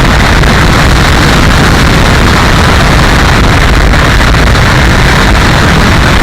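Loud, steady rushing of wind over the microphone, with no motor pitch or separate sounds standing out.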